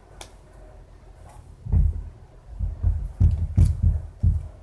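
Handling noise from tarot cards being sorted close to the microphone: a light click, then a run of six or seven dull, low thumps with faint card rustle, as the cards and booklet knock against the surface.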